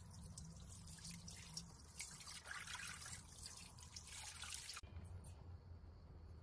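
Boiling water pouring in a thin stream into a stainless steel pot, splashing onto raw ribs and the pot's base; the pour stops abruptly about three-quarters of the way through.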